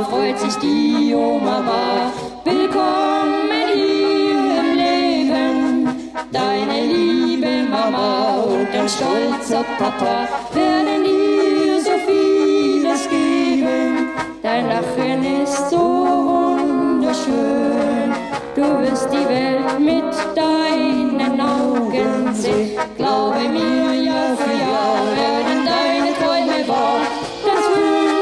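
Music: a song with singing and brass instruments, playing continuously.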